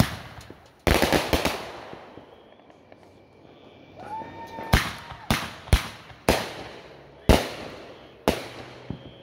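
Consumer fireworks going off: a dense crackling volley at the start and again about a second in, then a run of sharp bangs roughly a second apart through the second half as aerial shells burst.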